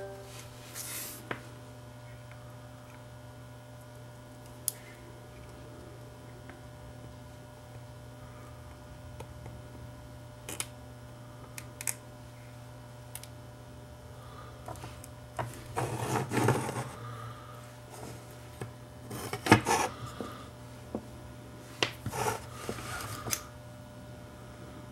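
Bench handling noises while tacking a small surface-mount chip to a circuit board with fine solder: scattered light clicks and a few short rustling scrapes, bunched in the last third with one sharp click, over a steady low electrical hum.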